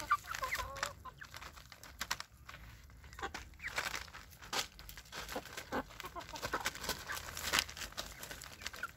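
Several hens clucking while they peck food off newspaper, with quick sharp taps and rustles of beaks striking the paper between the calls.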